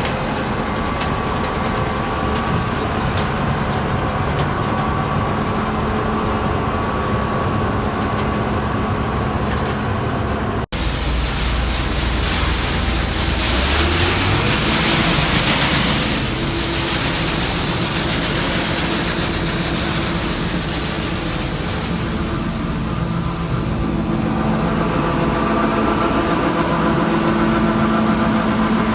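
Combine harvester running while picking corn: a steady engine and machinery drone. About 11 s in the sound cuts abruptly. The engine pitch then rises, and a loud rushing hiss swells for a couple of seconds before the steady running resumes.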